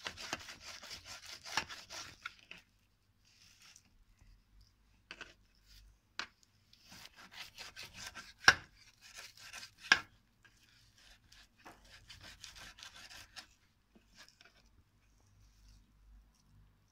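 Chef's knife slicing through raw pork tenderloin on a plastic cutting board: runs of rasping sawing strokes, with a few sharp knocks of the blade against the board, the loudest about halfway through.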